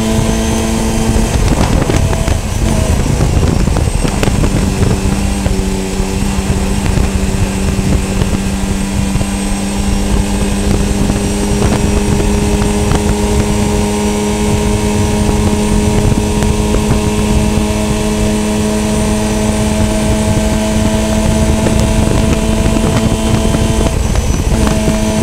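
VW Funcup race car's engine heard from the onboard camera, pulling at a near-steady pitch that climbs only slowly, as if held in one gear down a long straight, over heavy wind and road noise. The note dips briefly about two seconds in and breaks off for a moment near the end.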